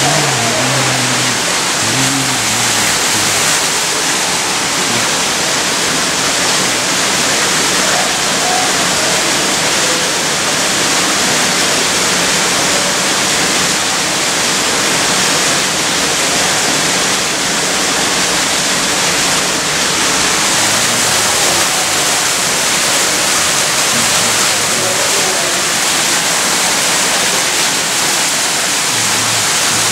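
Steady rushing and splashing of a small waterfall falling over rocks, with faint voices in the background briefly at the start and again later on.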